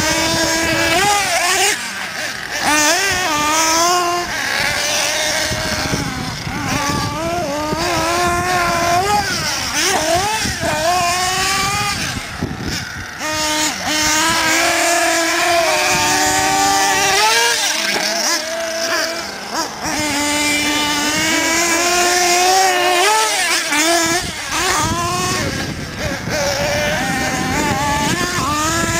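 Small nitro engines of radio-controlled off-road trucks, revving up and down over and over as the throttle is worked, each burst of revs rising in pitch and dropping back.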